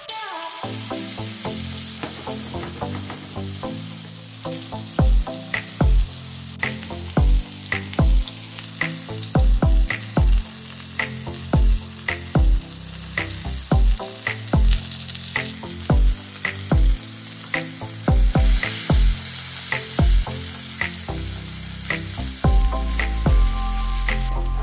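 Food sizzling and frying in a hot pan, a steady hiss, under background music with a regular thumping beat.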